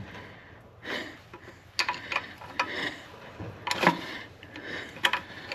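Several irregular sharp metallic clicks: a small wrench on the bleeder screw of a 1956 Dodge Power Wagon's drum-brake wheel cylinder, cracking the bleeder open and shut while the brakes are bled with the pedal held down.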